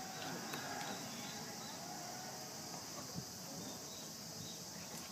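Steady high-pitched insect drone from the surrounding trees, with faint distant voices drifting across the field.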